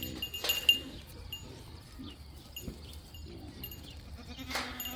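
A goat bleating, with one held call near the end.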